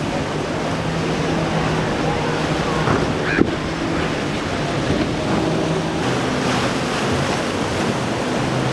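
Boat engines running with a steady low hum over the rush of waves and wind noise on the microphone; the hum drops slightly in pitch about six seconds in.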